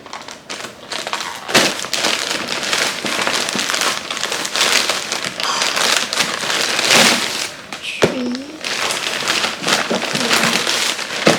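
Parcel packaging being opened by hand: plastic and paper wrapping crinkling and tearing, with frequent sharp snaps.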